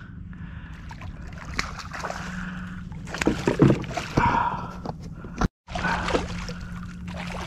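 A hooked redfish (red drum) thrashing and splashing at the surface right beside a plastic kayak, with water sloshing and scattered knocks. The splashing is loudest a little past the middle, and the sound drops out for a moment shortly after.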